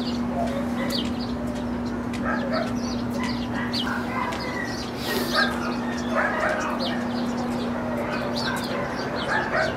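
Several dogs barking and yipping in an overlapping, irregular chorus, over a steady low hum.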